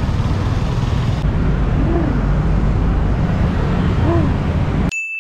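Street traffic noise with a heavy wind rumble on the microphone. Near the end the street sound cuts off abruptly and a single bright ding rings out and fades.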